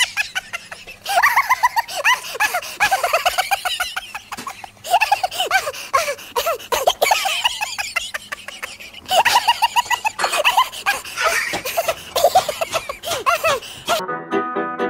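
High-pitched laughter in three long runs of quick ha-ha pulses. Just before the end it gives way to instrumental music.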